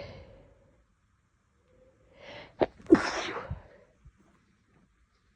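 A girl sneezes once, a little after the middle, with a short breath in and a sharp click just before the sneeze.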